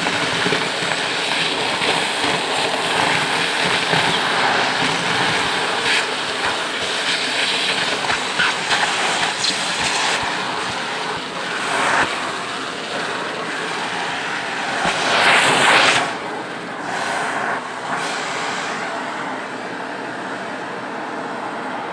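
Shark vacuum cleaner running steadily through its hose nozzle, with small paper bits clicking and rattling as they are sucked up. The suction noise swells louder for about a second around fifteen seconds in, then settles.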